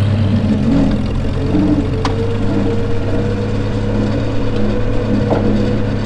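Narrow-front farm tractor's engine running as the tractor drives slowly, a steady low hum, with a steady whine joining in about a second and a half in and a single click about two seconds in.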